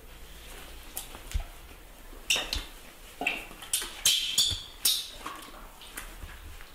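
A puppy scuffling with a baby monkey on a padded pet bed: a rapid series of short, high squeals from the animals, with a few soft thumps of bodies on the cushion, coming thickest from about two seconds in.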